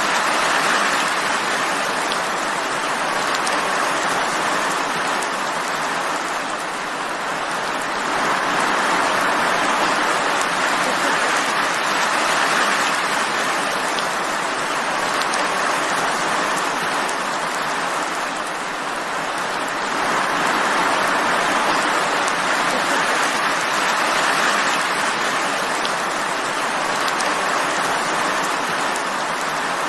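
Steady rain falling, a dense even hiss that grows louder and softer every several seconds.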